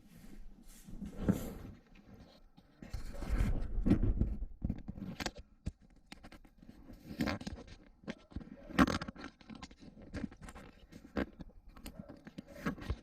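Hands handling a radiator fan and its screws while fitting it to a dirt bike's radiator: irregular clicks, knocks and scrapes. A louder stretch of rustling and knocking comes about three to four and a half seconds in.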